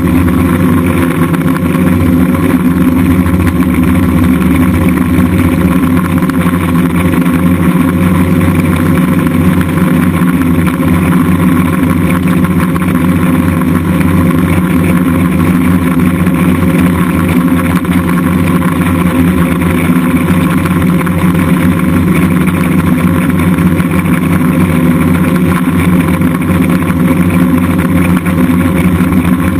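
DJI F550 Flame Wheel hexacopter's six electric motors and propellers running steadily in flight, their pitch holding almost constant.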